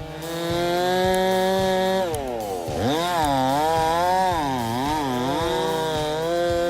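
Husqvarna 390 XP two-stroke chainsaw revving to full throttle. About two seconds in, its pitch drops and wavers up and down as the chain is loaded in the cut. Near the end it climbs back to a steady high whine.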